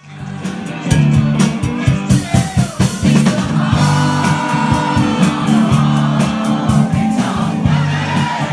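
Live band playing amplified music with drums and guitar, a woman singing.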